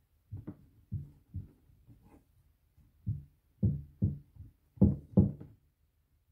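About eight dull thuds of hands patting and pressing scone dough flat on a wooden chopping board, coming in uneven bursts. The loudest two come close together about five seconds in.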